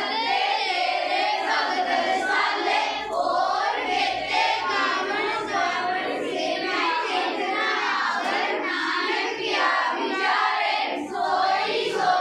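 A class of schoolchildren singing a Sikh prayer (Gurbani) together in unison, many young voices without a break.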